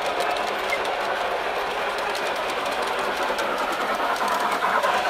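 Model train running past on the track close by: a steady whirring of the locomotive motor and wheels, with fine rapid clicking of wheels over the rail joints.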